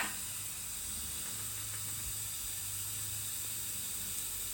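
Steady hiss of background noise with a faint low hum, and a single sharp click right at the start.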